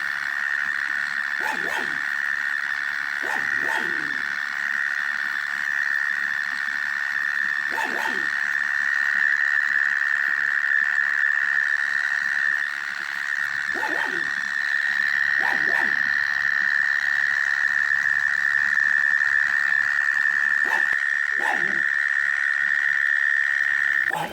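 A continuous high-pitched buzzing trill coming from underground, steady throughout and cutting off suddenly at the end. Short falling calls sound every few seconds beneath it.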